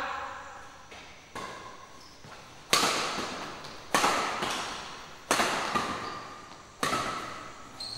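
Badminton rackets hitting a shuttlecock in a doubles rally: five sharp hits about a second and a half apart, the first faint, each ringing out in a large hall.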